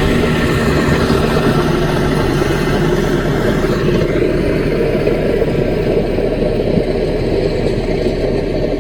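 Diesel engine of a small Caterpillar bulldozer running steadily.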